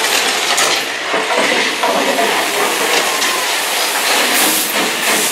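Mine-train roller coaster cars clattering up a lift hill inside a tunnel, with a loud hiss of a fog effect bursting out about four seconds in and briefly again near the end.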